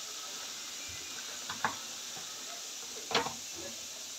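A wooden spoon stirring minced-beef samosa filling in a metal pan, scraping and knocking against the pan a couple of times about a second and a half in and again around three seconds in, over a faint steady sizzle of the filling frying.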